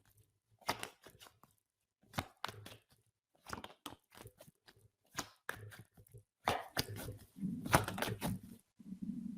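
Hungry stomach gurgling and growling: a run of short pops and gurgles, with a longer low rumble near the end.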